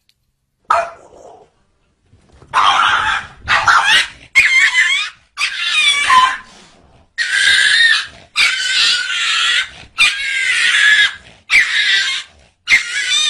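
A small dog giving a string of about nine loud, high-pitched drawn-out cries, each about a second long, starting a couple of seconds in.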